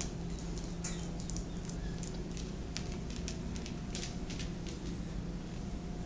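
Light, irregular clicks of a dog's claws on a hard vinyl floor as it walks, thick over the first four seconds and sparser after, over a steady low room hum.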